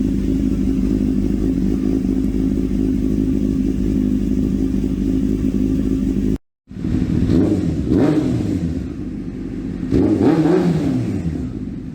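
Carbureted Honda motorcycle engine idling steadily, then, after a brief cut, revved twice, each rev rising and falling back toward idle. It is running cleanly after carburetor cleaning and adjustment.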